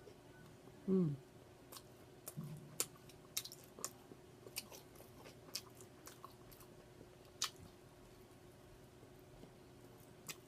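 A person chewing food close to the microphone: scattered sharp wet mouth clicks and smacks. About a second in there is a short, low, falling vocal sound, the loudest moment.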